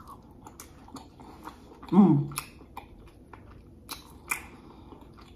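Close-up mouth sounds of chewing a forkful of rice and chicken al pastor, with many small wet clicks and smacks. About two seconds in comes a short hummed 'mm' with a falling pitch, the loudest sound, and two sharper smacks follow near the end.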